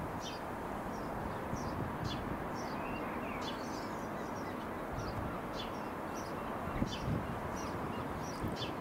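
Bell 505 Jet Ranger X helicopter flying overhead, a steady rumbling noise, while small birds chirp in short calls about once or twice a second.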